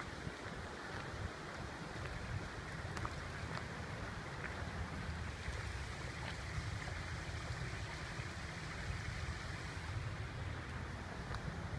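Steady rushing noise of running water from a nearby stream, with wind buffeting the phone's microphone as a fluctuating low rumble and a few faint footstep clicks on the woodland path.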